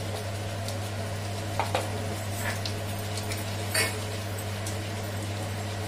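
Wooden spatula stirring thick onion-tomato masala gravy in a kadai as it sizzles, with a few scrapes against the pan, the loudest a little under four seconds in, over a steady low hum.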